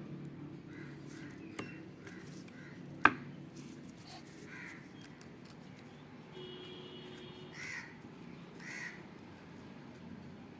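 Repeated bird calls, several short ones in the first three seconds and a few more later, over a low steady hum. A single sharp click comes about three seconds in.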